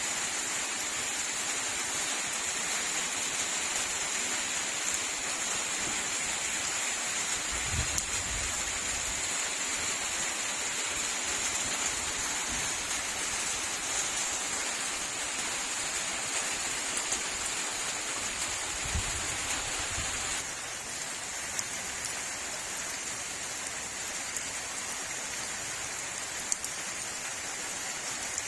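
Heavy rain falling steadily, a dense even hiss, with two brief low rumbles about a third and two-thirds of the way through.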